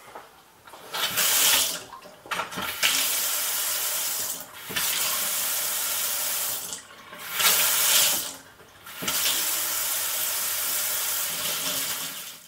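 Bristan Monza kitchen mixer tap running into a stainless steel sink, its flow turned off and on again several times with the lever. The tap has newly replaced cartridges.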